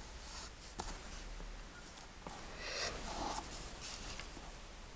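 Faint rustling and scratching of hands and embroidery floss brushing over a clipboard while friendship-bracelet knots are tied, with a light click about a second in.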